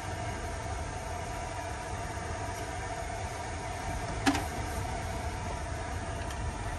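Storm wind and rain buffeting the camper van, heard from inside as a steady rumble and hiss. A single sharp click comes about four seconds in.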